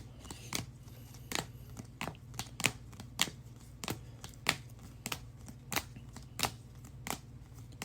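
Trading cards being handled and set down one after another: a string of light, sharp clicks roughly every half second, over a low steady hum.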